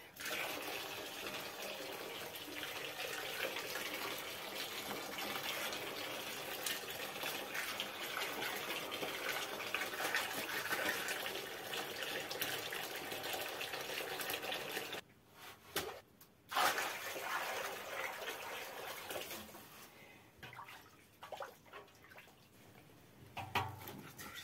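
Water poured from an aluminium kettle in a thin steady stream, splashing into a large aluminium bowl of liquid. It breaks off briefly about fifteen seconds in, resumes, and stops a few seconds later. The last few seconds are quieter.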